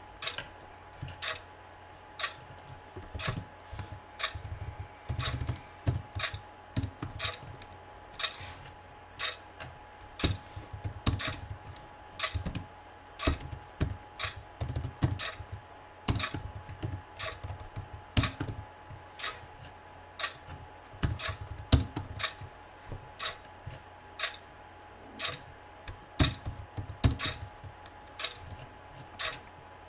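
Typing on a computer keyboard: irregular keystrokes in uneven runs and pauses, some strokes louder than others.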